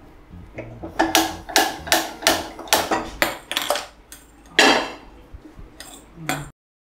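Metal kitchenware clattering: a quick run of knocks and clinks of utensils against pots and pans, about three a second, then one louder knock and two more near the end.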